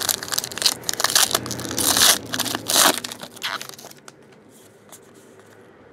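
Foil wrapper of a Topps Platinum football card pack crinkling and crackling as it is handled and opened, dying down to quiet after about four seconds.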